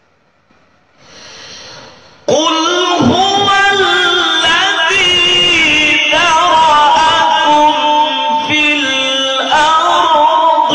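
A male qari starts a melodic Quran recitation into a microphone about two seconds in. His voice holds long notes and slides through ornamented turns between them.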